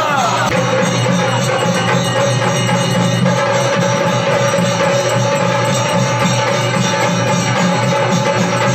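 Music with a steady held drone and percussion, dense and even throughout.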